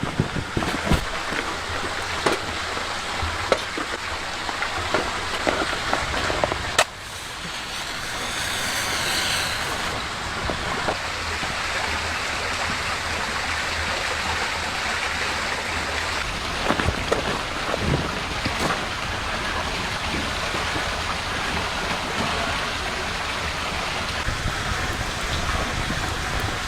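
Steady rain pattering, with scattered sharper drips or taps and one loud knock about seven seconds in.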